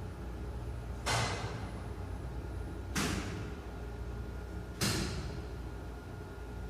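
Electrical contactors in a Schindler elevator machine room clacking shut three times, about two seconds apart, each clack trailing off with a brief hiss, over the steady low hum of the lift machinery.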